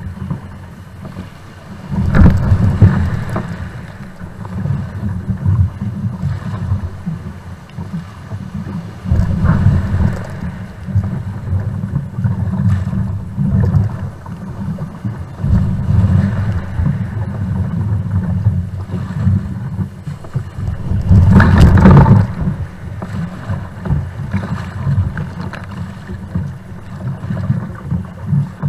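A kayak being paddled out through breaking surf: water rushing and splashing against the hull, under a heavy low rumble of wind on the microphone. There are louder surges of splashing about two seconds in and near ten seconds in, and the loudest comes about 21 seconds in, as a wave or spray hits.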